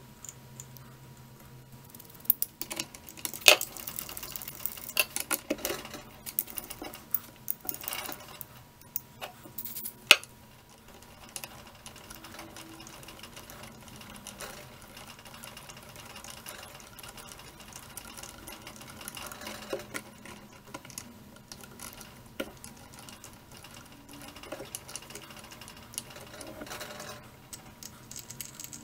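Small hand tool clicking and scraping against a metal part held in a machine vise: irregular sharp clicks and knocks, busiest in the first ten seconds and sparser after, over a faint steady whine.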